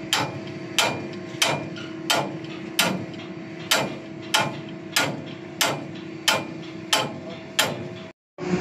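Sledgehammer blows on the steel top of a grab's hydraulic cylinder, metal on metal, about a dozen evenly spaced strikes at roughly three every two seconds, each with a short ring, over a steady machinery hum.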